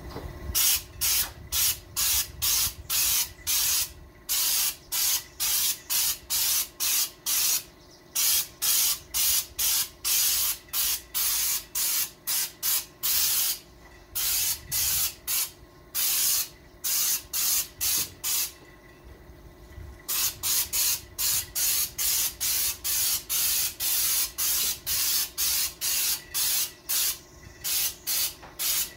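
Compressed-air spray gun with a bottom canister, fed by an air hose, spraying paint in quick short bursts of hiss, about two a second. The bursts stop once for a couple of seconds about two-thirds of the way through. A faint steady hum runs underneath.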